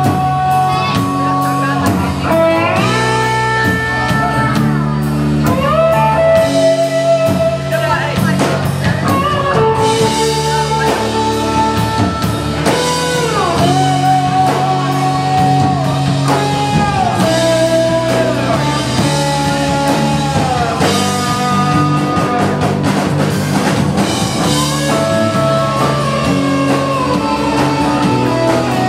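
A live rock band playing: drums, bass, and acoustic and electric guitars, with a lead line gliding up and down between held notes.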